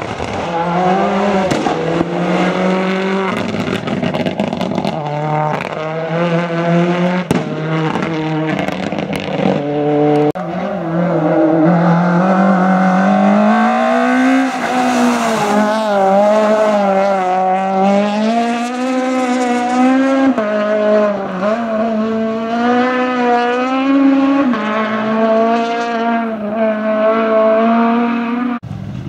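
Hillclimb race car's engine at full throttle. In the first ten seconds its pitch repeatedly climbs and drops back as it shifts through the gears, then it rises and wavers at high revs, and it cuts off abruptly near the end.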